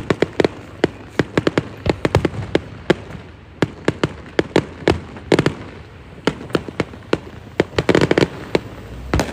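Fireworks display: a rapid, irregular string of sharp bangs and pops, many each second, thickest about eight seconds in.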